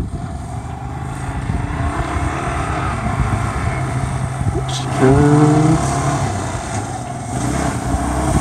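Yamaha Raptor 350 quad's single-cylinder four-stroke engine running as it rides closer, growing louder, with a louder stretch about five seconds in.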